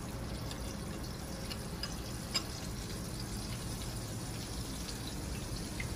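Flour-and-egg-coated pork cutlet frying in hot oil in a pan: a steady sizzle with scattered small crackles, and one sharper click about two and a half seconds in.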